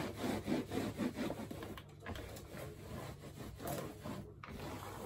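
A cloth rubbing and pressing a thin PVC wall panel flat against the wall as it is glued on, in quick repeated strokes.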